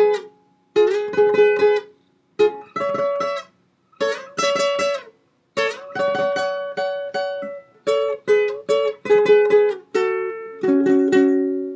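Nylon-string classical guitar playing a picked requinto lead melody, mostly in two-note harmonies on adjacent strings. It goes in short phrases with brief pauses between them, and ends on a two-note chord left to ring and fade.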